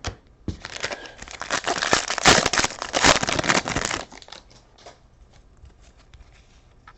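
A card pack's wrapper being torn open and crinkled for about three and a half seconds, followed by faint light handling clicks.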